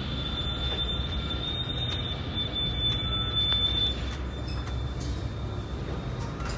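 Metra BNSF commuter train rolling in to its stop: a steady low rumble with a thin high squeal that fades out about four seconds in.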